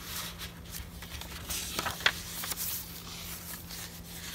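Paper rustling as hands slide a paper tag in and out of a small paper file folder and turn the stiff pages of a handmade junk journal, with a few soft paper clicks, the sharpest about two seconds in.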